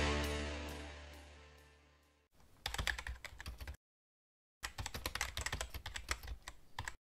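Electric-guitar music fading out, then computer-keyboard typing in two quick runs of clicks with a short pause between them: a typing sound effect for text being typed out on screen.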